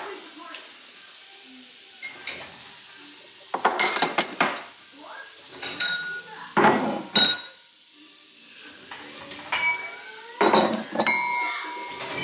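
Dishes and metal cutlery being handled in a kitchen, clattering and clinking in several separate bursts, some clanks leaving a short ringing tone.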